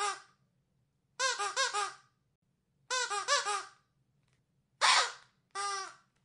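Rubber squeaky dog toy being squeezed in quick runs. It gives two runs of four or five short squeaks, each rising then falling in pitch, then two longer, breathier squeaks near the end.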